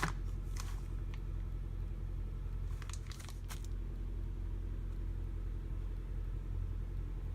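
Steady low hum in the room, with a few light clicks and rustles as the mount's parts and packaging are handled.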